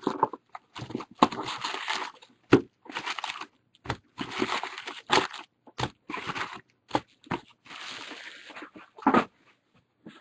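Clear plastic wrap being torn off a box of trading-card packs and crumpled, and the foil packs handled, in a run of short, irregular crinkling and rustling bursts with sharp clicks.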